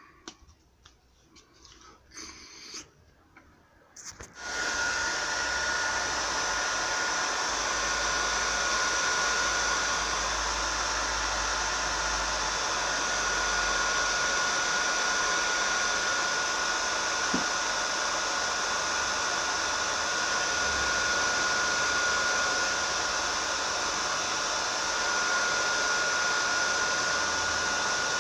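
An electric tool, motor- or blower-driven, switched on about four seconds in and running steadily: a rushing hiss with a steady high whine over it. A few light handling clicks before it starts.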